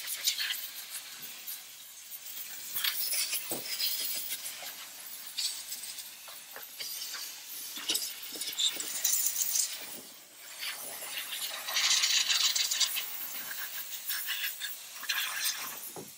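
Steam hissing from a Chief Steamer steam cleaner's nozzle as its brush tip is scrubbed over a car battery and the plastic air-filter box. The hiss comes and goes and is loudest about twelve seconds in, with many small scratches and clicks from the brush.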